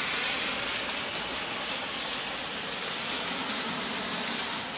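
Steady rain falling, an even hiss with scattered drops landing on wet surfaces.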